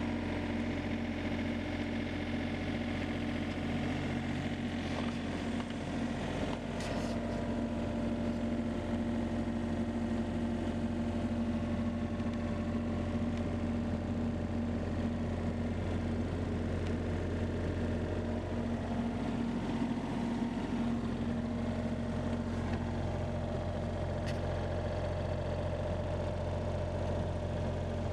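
Case CX36B mini excavator's 28 hp Yanmar diesel engine running steadily, with a few faint clicks.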